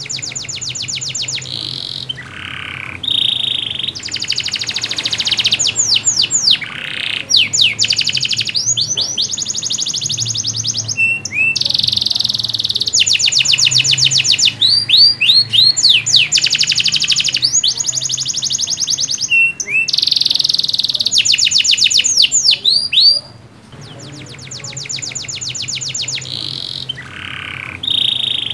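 Domestic canary in full song: a long, continuous run of fast trills, rolls and rapid repeated notes, broken by short pauses and a brief drop about three-quarters of the way through.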